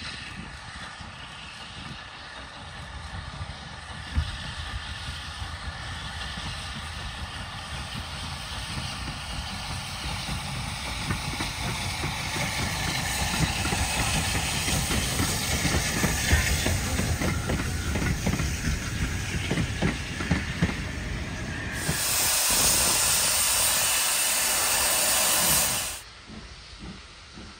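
LSWR T3 class 4-4-0 steam locomotive No. 563 passing under steam, its exhaust chuffing louder as it draws near, with the coaches running by on the rails. Near the end a loud steady hiss takes over and then cuts off suddenly.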